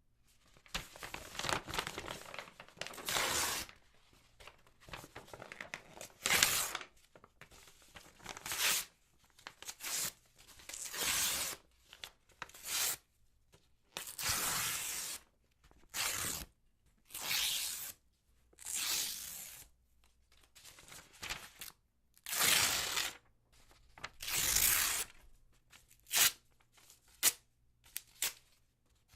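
Sheets of letter paper being torn again and again: a series of separate rips, some short and sharp, some longer and drawn out, with brief pauses and light rustling between them.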